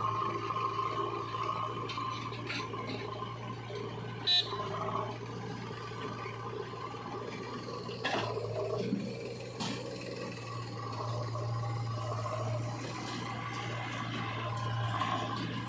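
Heavy diesel engine running steadily at work, with a constant low hum, a few knocks, and a brief sharp high sound about four seconds in.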